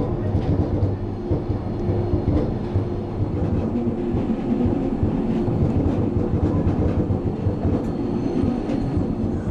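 Glacier Express metre-gauge electric train running along the track, heard from on board: a steady rumble of wheels on rails with some clickety-clack and a low, even hum.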